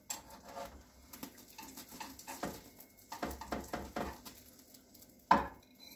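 Metal spatula scraping and tapping in a frying pan as a fried egg is lifted out, with one sharper clack a little after five seconds in.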